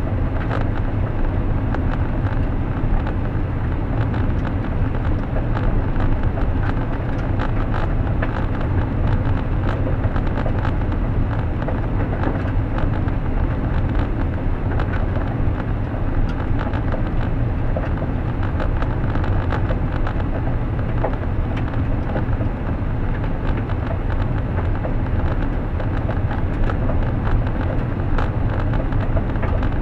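A car driving steadily, with a low engine and tyre rumble and many small ticks and crackles throughout.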